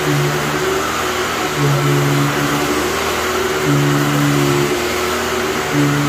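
A 1995 Dirt Devil MVP 12-amp upright vacuum cleaner running on carpet: a steady motor whine and airflow rush, with a low hum that comes and goes every second or so as it is pushed back and forth.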